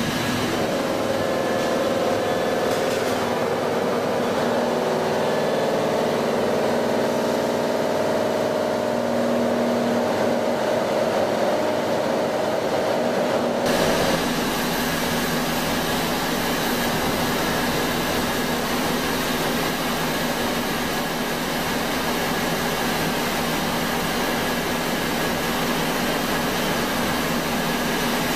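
Vortex D1 cook, quench and chill system for pasta running with a steady mechanical drone. About fourteen seconds in the sound changes abruptly, from a wavering drone of several mid-pitched tones to a steadier hiss with a low hum.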